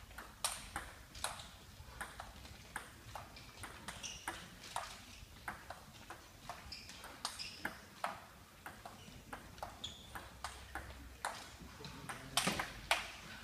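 Table tennis ball struck back and forth in a long rally: sharp clicks of the celluloid ball off the rubber bats and the table, about two a second, with a few louder hits near the end.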